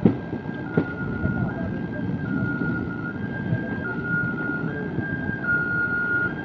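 Two-tone hi-lo siren switching between a higher and a lower note about every three-quarters of a second, over the low rumble of a slowly moving train. Two sharp metallic knocks come right at the start and just under a second in.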